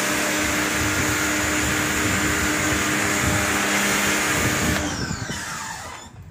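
Takara Europa electric pressure washer running steadily, its motor hum under the hiss of the water jet striking a concrete floor. Near the end the hum cuts out and the motor winds down with a falling whine that fades away.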